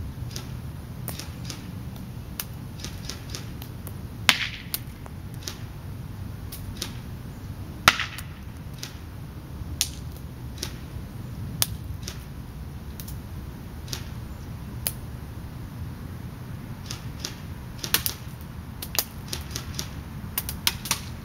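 Irregular sharp ticks and cracks from airsoft fire at a board target: A&K SR25 BBs shot about once a second, with two louder cracks about four and eight seconds in and a quicker run of hits near the end, over a steady low background rumble.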